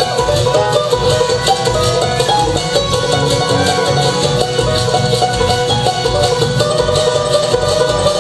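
Bluegrass band playing an instrumental break: quick banjo picking over guitar, with a washboard scraping out a steady, fast beat.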